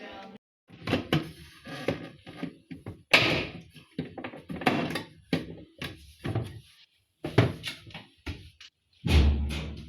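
Refrigerator shelves, drawers and door being handled: irregular knocks and clatters with short pauses between them, and a heavier thump about nine seconds in.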